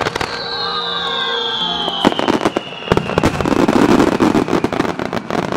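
Aerial fireworks going off. A sharp bang at the start is followed by a long whistle falling slowly in pitch, then a rapid, dense run of crackling bangs from about two seconds in.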